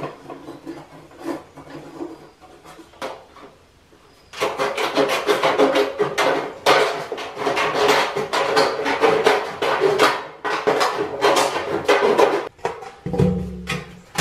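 Hand tools working a corrugated galvanized steel roofing sheet. A few scraping strokes come first, then from about four seconds in a fast run of rasping, cutting strokes, about four a second, while the sheet rings. Near the end a low steady hum starts.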